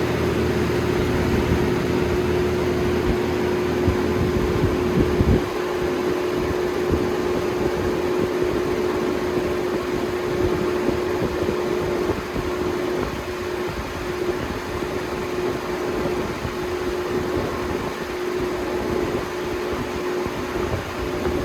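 Two Holmes HABF-20 box fans running together on high: a steady rush of air with a steady hum. A lower hum drops away about five seconds in.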